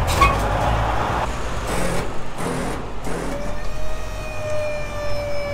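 Highway traffic passing: a rush of a vehicle going by near the start, then a steady hum that rises slightly a little after halfway and holds.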